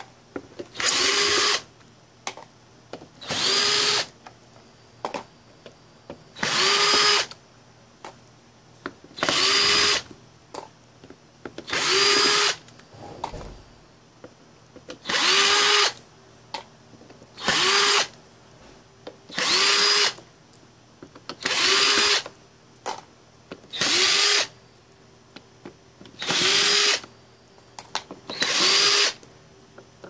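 Power drill with a number 2 Phillips bit backing screws out of a turntable's bottom cover. It runs in about a dozen short bursts, each under a second and two to three seconds apart, and its pitch rises at the start of each burst. There are small clicks between the bursts.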